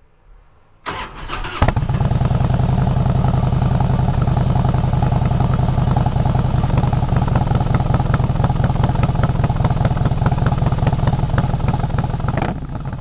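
A motorcycle engine starts about a second in, then runs loud and steady with a fast, even throb, fading out near the end.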